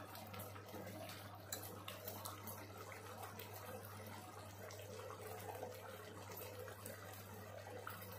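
Spiced tomato gravy bubbling faintly as it comes to the boil in a clay pot, with a wooden spoon stirring it and a few light knocks about a second and a half in.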